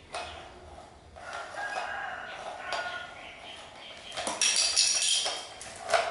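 Rooster crowing in the background: a long call about a second in, then a louder, higher one about four seconds in.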